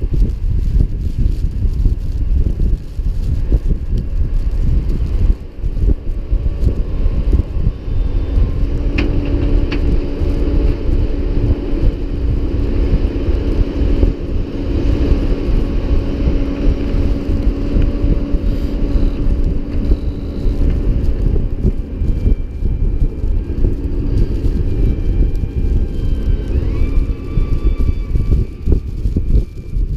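A tractor engine running steadily under heavy wind rumble on the microphone, with a few steady engine tones coming and going.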